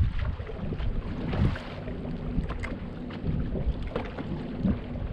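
Wind buffeting the microphone on a fishing boat, heaviest in the first second and a half, with a few small knocks and clicks.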